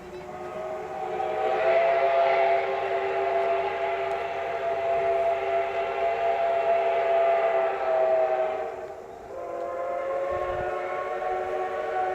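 Steam locomotive whistle from the D51 and C56 double-header: one long blast of several notes together lasting about eight seconds, a short break, then a second long blast.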